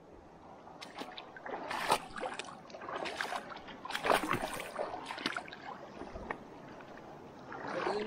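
River water splashing and sloshing around a person wading in the shallows, in uneven splashes about once a second.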